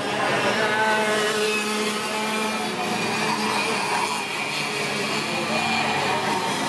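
Racing kart engines at high revs as several karts pass along the straight, several engine notes overlapping and shifting in pitch.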